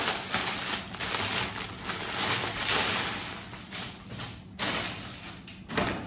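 Clear plastic wrapping crinkling and rustling as a soft toy is handled and pulled out of it, in uneven surges with a short lull about four and a half seconds in.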